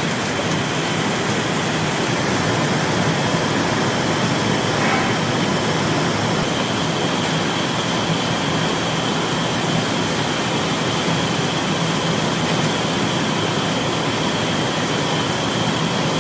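Steady, loud din of factory machinery, with a faint high whine running through it.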